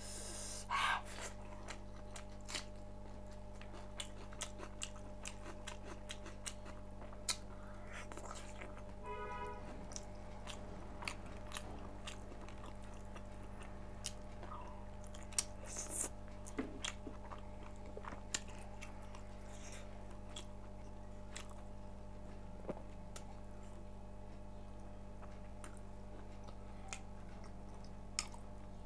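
Close-miked chewing and biting of cooked pork, with scattered short crunchy clicks and mouth sounds, over a steady low hum.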